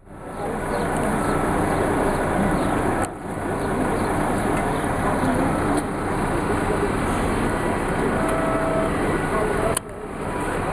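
Street noise from heavy lorries running, with voices in the background. The sound breaks off abruptly about three seconds in and again near the end, then resumes.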